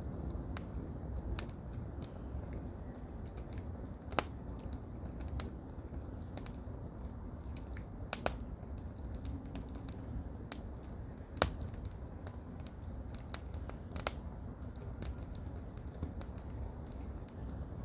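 Firewood burning: irregular crackles with a few louder sharp pops, about four, eight, eleven and fourteen seconds in, over a steady low rumble of strong wind.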